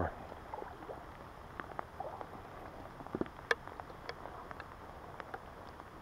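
Wet snow pattering: soft, irregular ticks of flakes landing close by, over a steady low rush of river water.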